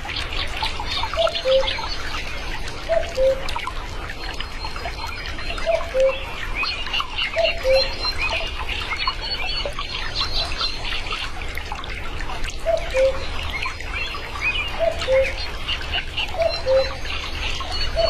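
Male common cuckoo calling its falling two-note "cuck-oo" about seven times, with a pause of a few seconds in the middle. Other small birds chirp and sing high in the background.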